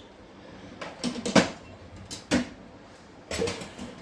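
A handful of short knocks and clinks of kitchen vessels as washed dal is tipped into a pressure cooker, spread through the few seconds, the sharpest about a second and a half in.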